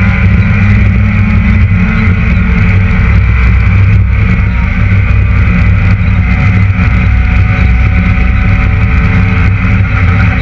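Citroën Saxo VTS rally car's four-cylinder 1.6-litre engine running hard at steady high revs, with only small rises and dips in pitch, loud inside the cabin.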